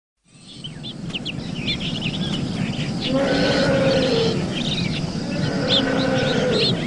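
Birds chirping rapidly, fading in from silence, with a lower drawn-out call heard twice.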